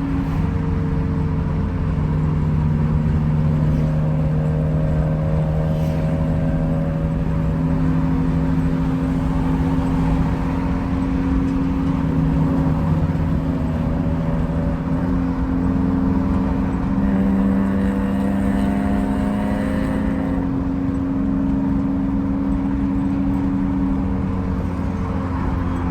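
Car engine running while driving, a steady hum whose pitch drifts up and down a little as the speed changes, over a low rumble.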